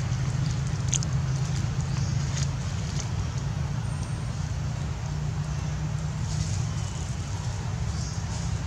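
Steady low rumbling background noise, with a couple of faint clicks about one and two and a half seconds in.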